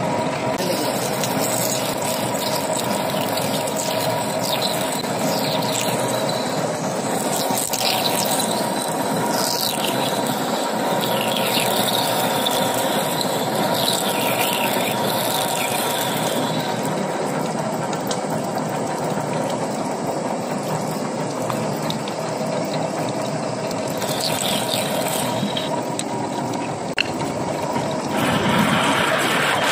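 Metal lathe running while a large twist drill bores into a spinning metal workpiece, the cut flooded with cutting oil: a steady machining noise with a constant whine, scattered brief high squeals from the drill and curling chips, and a louder, brighter cut near the end.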